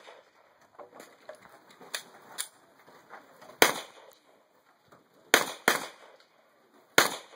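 A string of gunshots: three fainter cracks in the first two and a half seconds, then four loud, sharp shots, two of them in quick succession.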